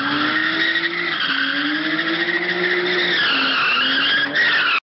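Nissan Skyline GT-R drifting through a bend: its tyres squeal with a wavering pitch while the engine revs rise and fall in repeated swells. The sound cuts off suddenly near the end.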